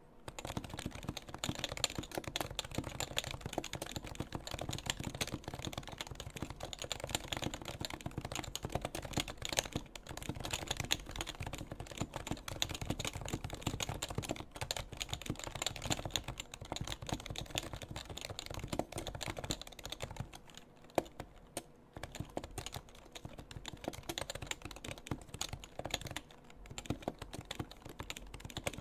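Steady, fast typing on a stock HHKB Pro2 keyboard with Topre switches: a continuous patter of keystrokes that thins out briefly about two-thirds of the way through.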